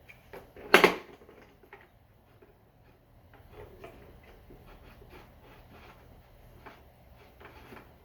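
A single sharp knock about a second in, followed by faint scattered clicks and handling noises. No vacuum motor is running.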